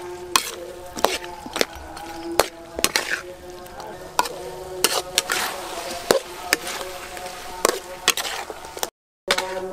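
Metal spatula scraping and knocking against an aluminium wok as pork ribs and vegetables are stir-fried, in irregular clinks about once a second. The sound drops out briefly near the end.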